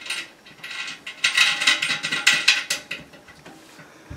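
Metal washers and nuts being threaded by hand onto a toilet's tank-to-bowl bolts: a quick run of small metallic clicks and scrapes, densest in the middle and then dying away.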